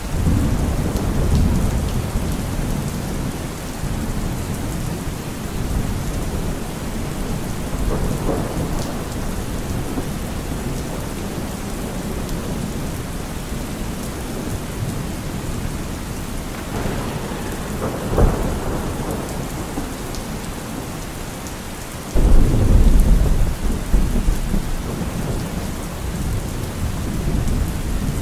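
Steady rain with rolling thunder. A low rumble starts right away, others swell about eight and seventeen seconds in with a sharp crack near eighteen seconds, and a sudden loud rumble breaks about twenty-two seconds in.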